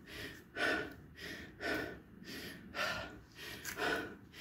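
A man breathing hard through the mouth, short audible breaths roughly one a second: catching his breath after a round of sit-ups.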